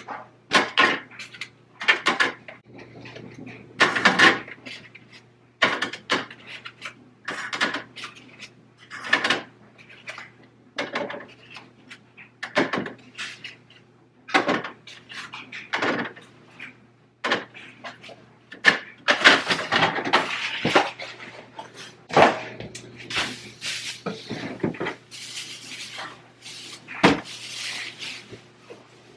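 Food containers, jars and bottles being picked up, set down and shifted on refrigerator shelves: a run of irregular knocks and clatters, over a steady low hum.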